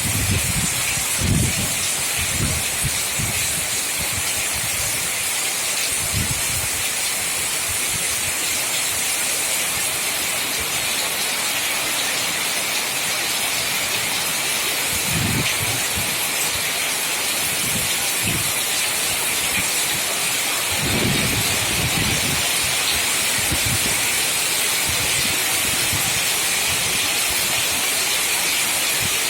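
Heavy rain falling steadily as a constant hiss, with strong wind gusting onto the microphone as short low rumbles several times.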